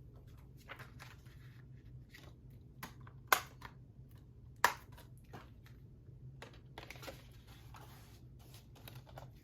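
Hands handling a plastic Blu-ray case and disc: scattered light clicks and rustles, with two sharp plastic clicks about a second and a half apart in the middle.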